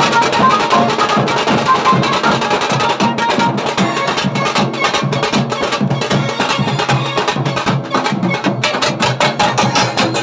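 A tasa band's snare-like tasa drums, played fast with thin sticks, with a large dhol beating underneath in a dense rhythm. A high melody line sounds over the drums for the first few seconds.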